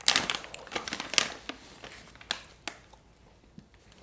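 Plastic snack packet crinkling and tearing as it is pulled open by hand, a quick run of crackles and sharp snaps that dies down near the end.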